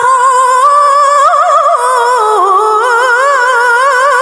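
A woman's solo Quran recitation in melodic tilawah style, one long unbroken melismatic line with rapid wavering ornaments; the pitch sinks about halfway through, then climbs back up in ornamented turns.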